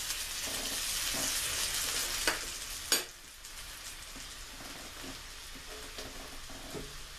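Two raw pork chops sizzling in melting butter in a frying pan, just put in. It is a steady hiss, louder for the first three seconds, and after a sharp click it settles to a quieter sizzle.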